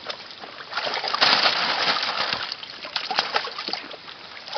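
Water splashing and sloshing as harvested koi are handled in the water. It is loudest from about one second in and eases off after about three seconds, with a few sharp clicks mixed in.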